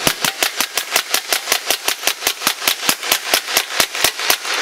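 Suppressed KRISS Vector SBR in .45 ACP, fitted with an AAC Ti-Rant suppressor, firing a long string of rapid, evenly spaced shots, about seven a second. The firing stops shortly before the end.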